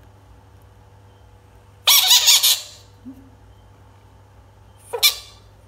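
Bullfrog screaming, the shrill distress call a frog gives when handled or threatened: one loud cry of under a second about two seconds in, and a shorter one near the end.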